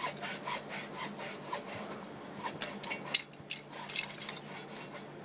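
Repeated rasping strokes of a hand tool scraping the cut end of a 7/8-inch coaxial feeder cable, about three a second at first and thinning out after about two seconds, with one sharp click about three seconds in.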